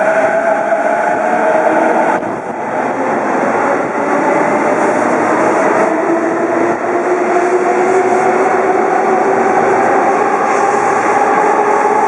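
JR East E233 series electric train accelerating out of the station: its traction motor whine rises steadily in pitch over the running noise of the cars rolling past.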